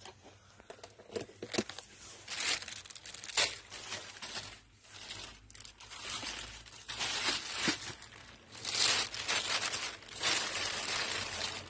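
Plastic packaging crinkling and rustling in irregular bursts while cat food is handled.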